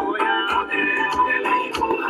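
Dance music playing with a sung vocal line over a drum beat.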